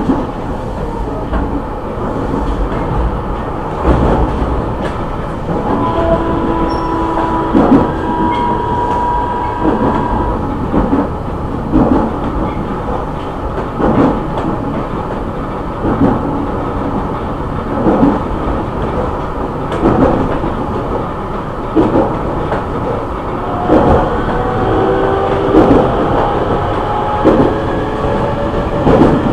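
JR East E501-series electric commuter train running, heard from inside a motor car at the car end: a steady rolling rumble with the wheels clicking over rail joints about every two seconds. The whine of its Siemens VVVF inverter and traction motors comes through at times and rises near the end.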